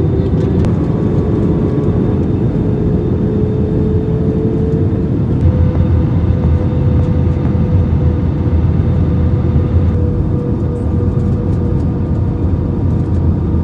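Cabin noise of an Airbus A320 airliner on approach: a steady rumble of airflow and jet engines, with a humming engine tone that rises slightly in pitch over the first five seconds and then holds steady.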